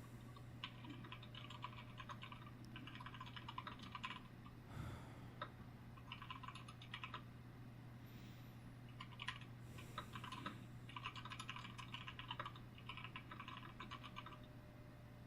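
Typing on a computer keyboard in quick, irregular runs of soft key clicks with short pauses between them, over a faint steady low hum. A few soft breaths fall in the pauses.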